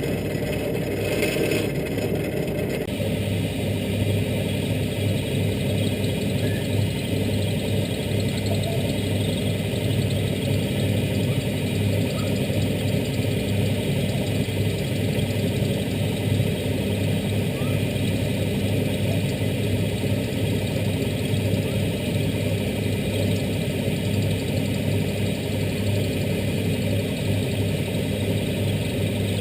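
Lathe motor running steadily under a machining cut on a sprocket blank, a continuous hum whose sound shifts about three seconds in.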